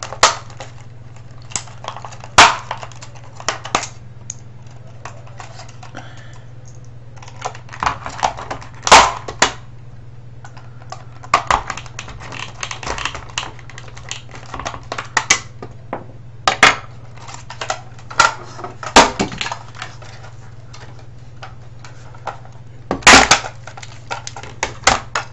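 Plastic case of a vTech cordless phone cracking and snapping as it is pried apart along its seam, with scattered clicks and knocks of the tool and parts; the loudest snaps come about 2 s in, about 9 s in and near the end. A steady low hum runs underneath.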